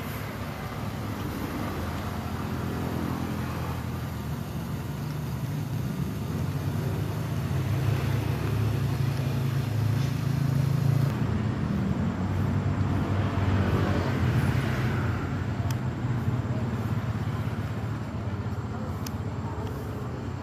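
Motor vehicle traffic: a steady low engine hum with road and wind noise.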